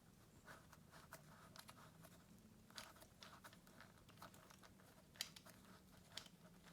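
Faint, scattered small clicks and ticks of handling a small threaded plug and locking nut, over a faint steady low hum.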